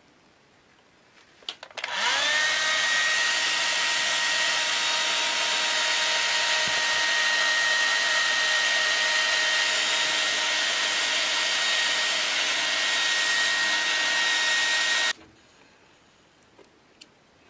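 Hand-held hair dryer starts up, its whine rising briefly as the motor spins up, then blows steadily with an even whine over the rush of air. It cuts off suddenly near the end.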